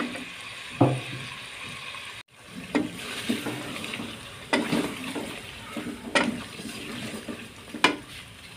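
A wooden-handled ladle stirring chicken legs and ginger-garlic paste in an aluminium pot, scraping and knocking against the metal about six times, over a soft sizzle of the chicken lightly frying.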